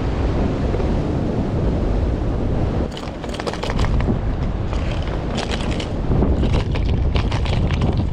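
Strong wind buffeting the microphone with a heavy low rumble. From about three seconds in, short bursts of crackling hiss come and go over it.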